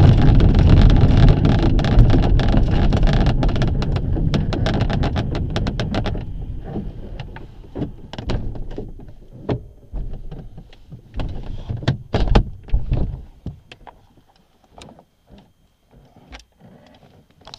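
LS-4a glider's landing roll on a grass strip, heard from inside the cockpit: a loud rumble and rattle of the wheel and airframe over the rough ground that dies away over the first six seconds as the glider slows to a stop. Scattered knocks and clunks follow, then only a few faint clicks near the end.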